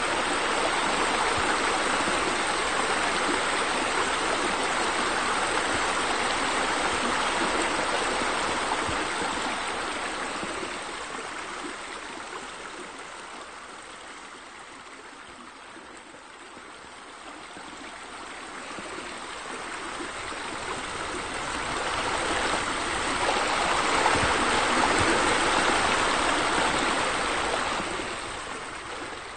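Steady rush and splash of falling water from pool deck jets streaming into a pool. It fades down about halfway through, swells back up a few seconds before the end, then fades away.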